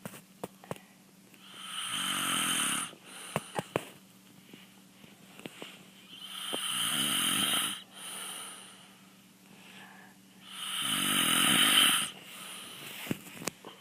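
A man snoring in deep sleep: three long, raspy snores about four and a half seconds apart, each swelling louder and then stopping.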